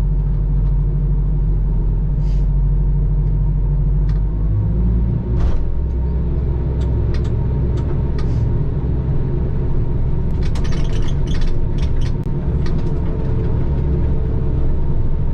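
Heavy diesel engine running steadily, its note changing about five seconds in, with scattered metallic clicks and clinks over it.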